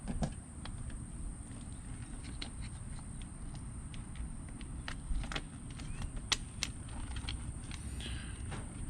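Scattered light clicks and taps of a screwdriver and small screws being worked into plastic paddle-shifter blanking covers on a steering wheel, over a low steady rumble and a faint steady high whine.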